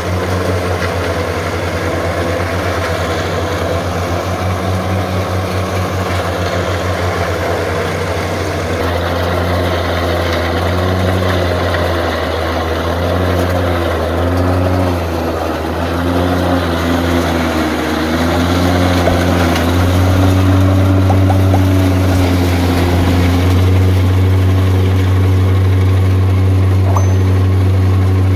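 Tractor engine driving a stationary forage chopper that is chopping dry corn stalks and straw for animal feed. The engine note sags and recovers several times as bundles are pushed in, then runs steady and a little louder.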